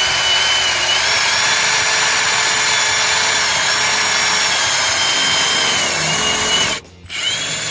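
Power drill running steadily at speed, drilling out a fixing; it stops abruptly near the end and is briefly started again.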